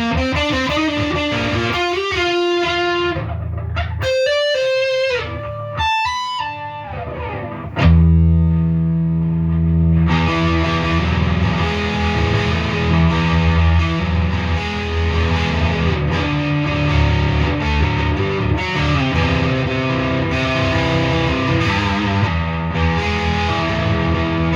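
Gibson Les Paul 50s Standard electric guitar with P-90 pickups played through an overdriven amp. It starts with single-note lead lines with some bends, then just before eight seconds in a loud chord is struck and full rhythm chords ring on.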